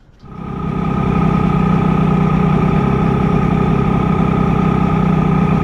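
1985 Mercury 90 hp two-stroke outboard motor, running with its cowling off: it comes up to speed over the first second, then idles steadily. Its idle timing reads about 5 degrees before top dead center instead of the specified 4 degrees after, so the timing is out.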